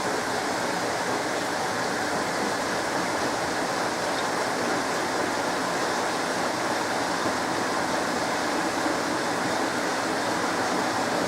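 SMEG 11 kg washing machine running with a steady, even rushing noise.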